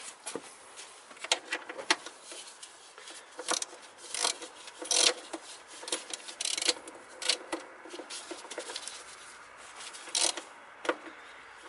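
Ratchet wrench clicking in short, irregular strokes while tightening the throttle body's mounting bolts.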